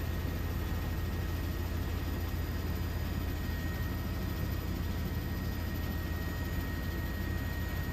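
Steady low aircraft engine drone with a rushing hiss and a faint high whine, holding level without rising or falling.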